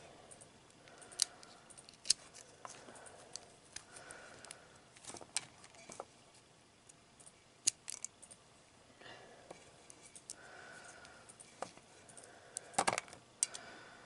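Split-shelled acorns clicking and clinking against one another and a metal bowl as a hand sorts and handles them. The clicks are sharp and scattered, with a closer run of them about thirteen seconds in.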